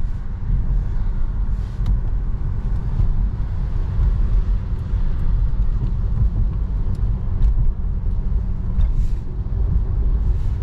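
Steady low drone inside the cabin of a BMW F30 335i cruising on a wet road: its turbocharged straight-six engine and the tyres on the wet tarmac, holding an even speed with no revving.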